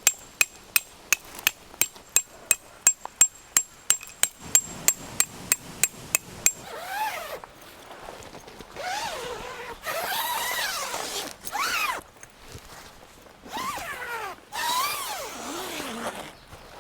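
Tent stakes being hammered into the ground: about two dozen quick metallic strikes, roughly four a second, each with a short ring, stopping about six and a half seconds in. After that come melodic sounds with gliding, rising-and-falling pitch.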